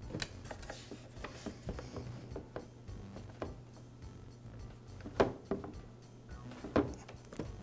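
Small plastic and rubber handling noises as fuel lines are pushed back onto their fittings on a backpack blower's fuel tank and carburetor: scattered light clicks and rubs, with two sharper knocks about five and seven seconds in, over a low steady hum.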